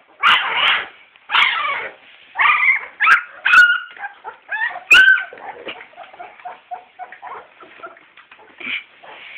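Young Daniff puppies squealing and whimpering as they jostle to nurse: a string of loud, high, wavering cries in the first half, then softer scattered whines.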